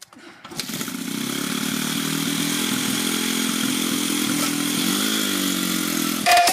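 Riding lawnmower's small engine running steadily, with a brief rise and fall in pitch about five seconds in; it stops abruptly near the end.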